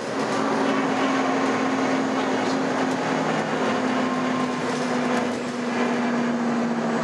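The interior of a 2011 Nova Bus LFS under way: the bus's running noise with a steady low hum-like tone that steps slightly lower about three and a half seconds in.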